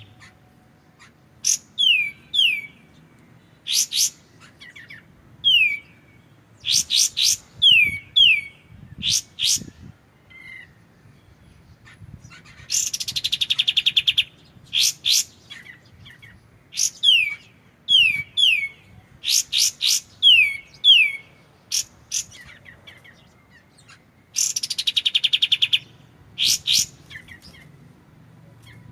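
Kapas tembak (Sunda bush warbler) singing in repeated bouts: each begins with a rapid buzzy trill, then a series of sharp, quickly falling whistled notes and short high strokes, with brief pauses between bouts.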